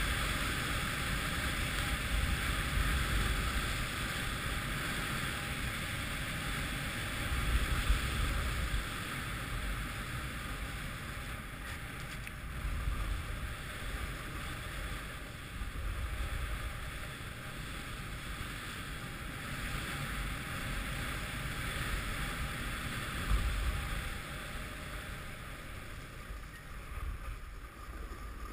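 Snowboard sliding over groomed snow, a steady scraping hiss, with wind buffeting the camera microphone in low rumbling gusts. The sound eases off toward the end as the board slows.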